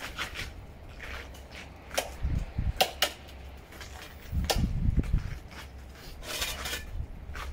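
Snow shovel knocking and scraping on ice: a few sharp knocks around the middle and a short scrape near the end.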